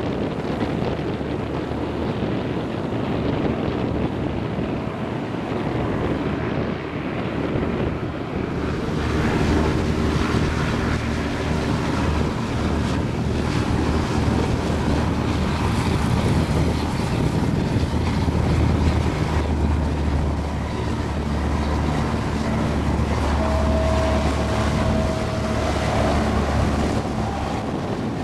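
Passenger hovercraft running past over the water: a continuous rumble of its engines and twin ducted air propellers mixed with rushing spray, growing fuller and louder about nine seconds in. A brief higher whine rises above it near the end.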